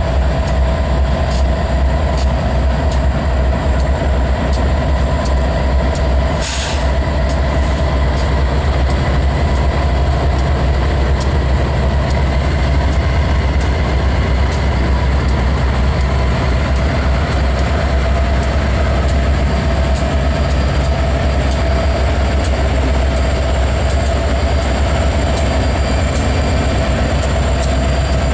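Freight train rolling past with a steady, loud low rumble.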